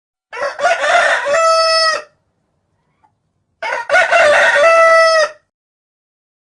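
A barred (carijó) rooster crowing twice, a couple of seconds apart. Each crow breaks up at the start and ends on a long held note.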